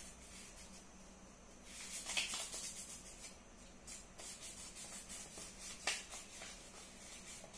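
A sheet of paper rustling and crinkling as it is folded and creased by hand: a run of rustles about two seconds in and a single sharper crinkle near six seconds.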